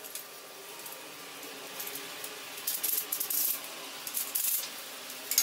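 Threaded steel rods sliding and clinking through metal corner-clamp blocks as a square frame clamp is put together, with a few short metallic scrapes and clinks from about halfway through and another near the end.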